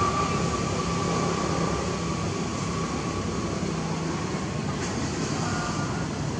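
Steady mechanical hum of a distant motor, with a faint high whine that fades out about two-thirds of the way through.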